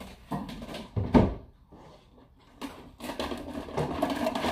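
A single heavy thump close by, about a second in, then faint household background noise in a small kitchen.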